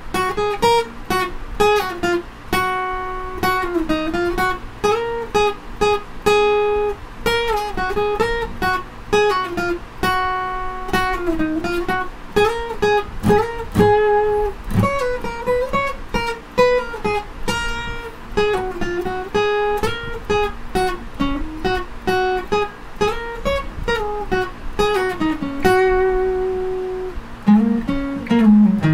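Steel-string acoustic guitar, tuned down a half step, playing a slow single-note lead solo with frequent slides and pull-offs between notes. Near the end there is a slide on a lower string.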